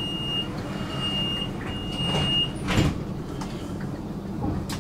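Tram door warning: three steady high-pitched beeps, then the sliding doors shut with a short loud rush and knock about three seconds in, over the tram's low steady hum.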